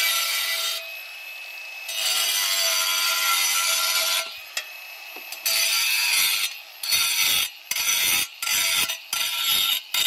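Cordless angle grinder cutting a clay roof tile, its disc whining under load. The cut eases off briefly twice in the first half, then from about seven seconds it goes on in short, rapid bursts.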